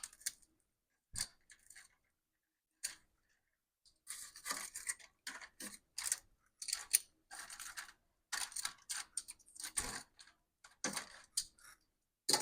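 Irregular scraping, rustling and clicking as utensils handle chicken thighs in an air fryer basket to turn them over midway through cooking.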